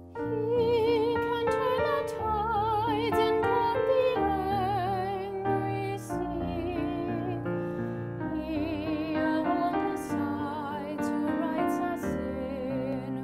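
A solo voice singing held notes with wide vibrato over piano accompaniment.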